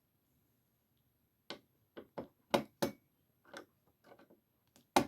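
A series of about nine sharp, irregular clicks and knocks of hard objects being handled, starting about a second and a half in, with the loudest knock near the end.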